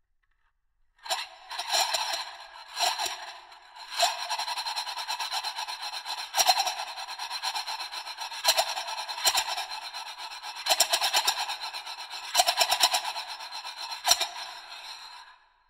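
Two small Tibetan singing bowls held in the bare hands and rubbed and scraped against each other: a continuous grating metal-on-metal sound with steady ringing tones, broken by sharp clicks every second or so. It starts about a second in and stops just before the end.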